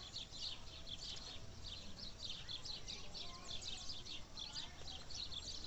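Birds chirping in a continuous rapid chatter of short, high chirps, several a second, over a low steady background rumble.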